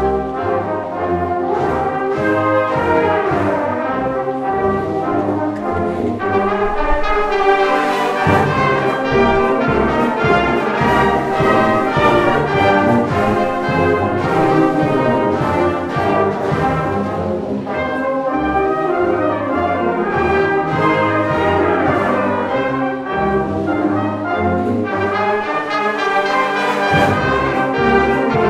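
Salvation Army brass band of cornets, trombones, euphoniums and tubas playing a piece together, with full sustained chords.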